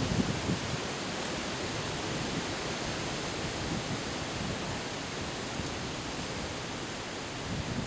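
Windstorm wind rushing steadily, an even hiss with light low buffeting on the microphone near the start.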